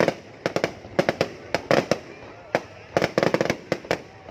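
Aerial fireworks display bursting: a rapid, irregular string of sharp bangs and cracks, several a second, with a dense flurry about three seconds in.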